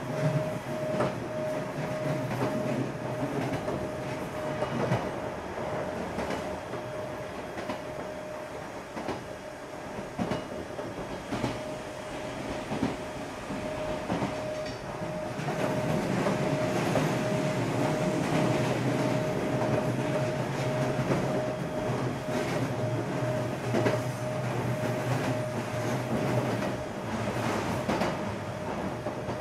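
Odakyu 8000 series electric train car with field-chopper control, running at speed between stations. Its wheels click over the joints of jointed rail, under a steady hum. The running noise gets louder about halfway through.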